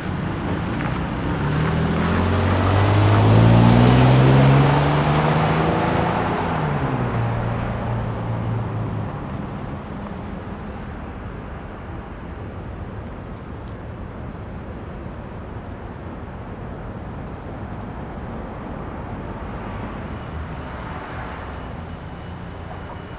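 A car engine accelerating past, rising in pitch and loudest about four seconds in, then fading out into steady street traffic noise.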